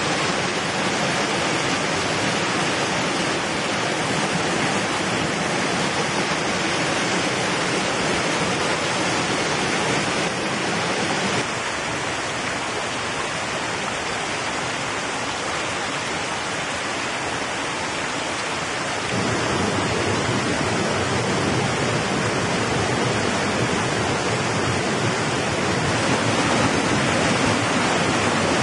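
Mountain stream rushing over rocks and small cascades, a steady wash of water. About eleven seconds in it turns quieter and thinner, and about eight seconds later it comes back fuller and deeper.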